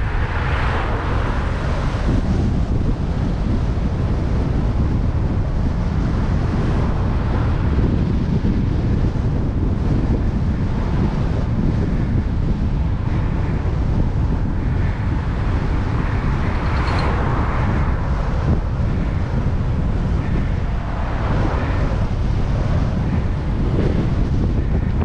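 Strong wind buffeting the microphone of a bicycle-mounted camera during a ride, a steady heavy rumble. There are a few louder swells of hiss, about a second in, around two-thirds of the way through and near the end.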